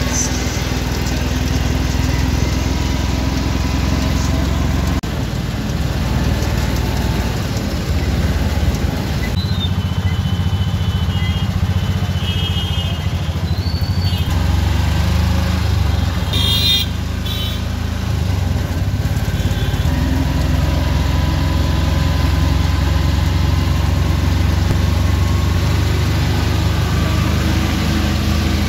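Engine of a tempo (three-wheeler shared auto) running steadily under way, a low drone, with traffic horns honking a few times near the middle.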